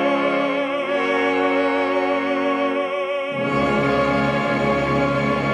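Operatic bass voice holding a note with wide vibrato over sustained orchestral chords. About three seconds in, the voice stops and the orchestra goes on alone with lower, fuller string chords.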